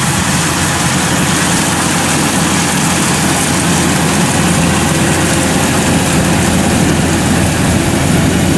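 Kubota DC105X rice combine harvester running at work while cutting rice, a steady loud mix of diesel engine hum and the rush of the header and threshing drum. It grows slightly louder as the machine draws closer.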